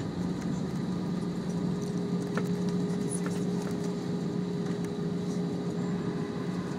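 Airbus A320 cabin noise as the airliner rolls on the ground after landing: a steady engine and airframe hum, joined about two seconds in by a faint, thin, steady whine.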